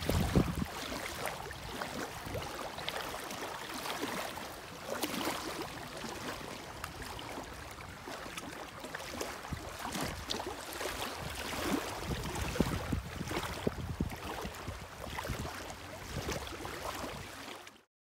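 Small wind-driven waves lapping and splashing against a sandy shore, with gusts of wind buffeting the microphone, strongest at the start. Stops abruptly near the end.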